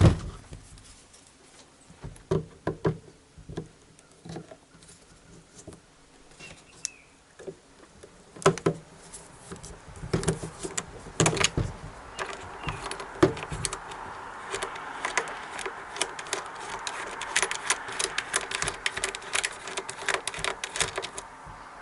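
Screw-extraction pliers gripping a Torx security screw: scattered metal clicks at first, then, about two-thirds of the way in, a long run of rapid clicking and scraping as the screw is twisted out.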